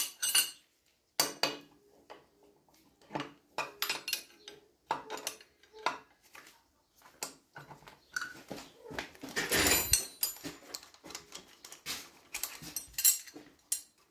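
Steel spanners clinking and clanking against the injector fuel pipe union nuts of a Dorman 2RB diesel engine as the pipes are undone, in a string of short metallic knocks, with a longer scraping rattle about nine seconds in.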